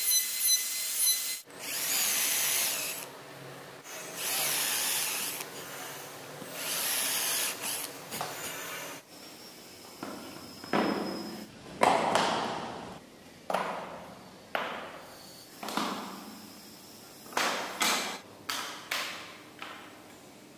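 A handheld rotary carving tool whines steadily as its burr cuts grooves into a wooden wheel, and stops about a second in. Then come a few short bursts of hissy rubbing on wood, and a string of hollow wooden knocks as carved wooden truck parts are set down on a table, the loudest about halfway through.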